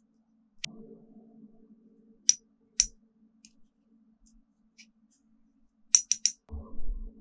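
Sharp small clicks and taps from handling painting tools: a pair about two to three seconds in, then a quick run of three near six seconds, followed by a soft low bump.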